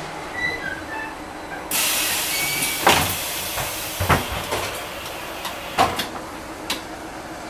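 Inside a VMZ-6215 articulated trolleybus standing at a stop: a loud hiss of compressed air starts suddenly about two seconds in and slowly fades, while several sharp knocks and thumps sound through the cabin.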